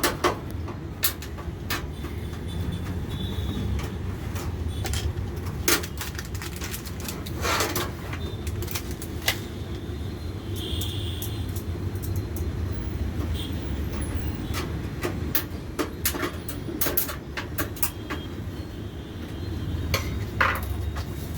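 Scattered clicks and knocks of a desktop PC cabinet being handled as its side-panel screw is undone and the panel removed, over a steady low background hum.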